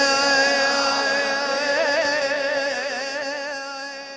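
A voice holding one long sung note at the close of an Arabic devotional chant; the note wavers in a vibrato from about halfway through and fades away at the end.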